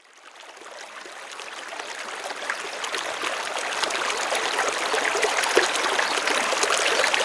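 Waterfall pouring over a rock ledge into a pool, a steady rush of running water that fades in from silence over the first few seconds.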